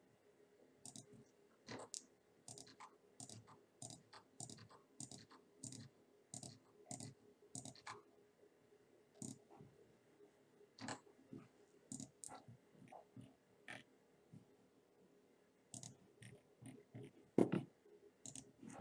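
Computer mouse button clicks, sharp and irregular, about two a second with short pauses and one louder click near the end, over a faint steady hum.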